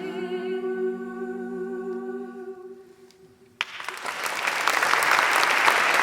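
Women's a cappella ensemble holding the final sung chord, which fades away. About three and a half seconds in, an audience suddenly breaks into applause that swells and keeps going.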